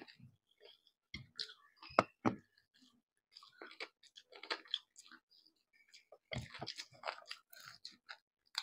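Faint chewing as people eat chicken and rice, with scattered small clicks and crackles and two sharper clicks about two seconds in.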